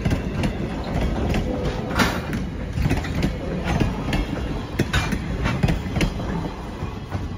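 Strasburg Rail Road passenger coaches rolling past at close range: a steady rumble of steel wheels on the rails, broken by irregular sharp clacks as the wheels pass over rail joints.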